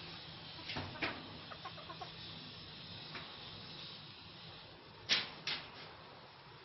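Spangled black gamefowl stirring in loose bedding: scratching with a few short sharp taps and soft clucks, and two louder sharp knocks about five seconds in.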